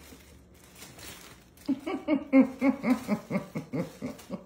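A person laughing in a quick run of short pitched "ha" pulses, about four a second, starting about a second and a half in and running on loudly close to the microphone.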